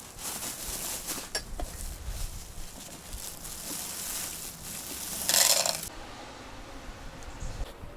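A snow shovel working through wet snow, with scattered scrapes and crunches and one louder, half-second scrape about five seconds in.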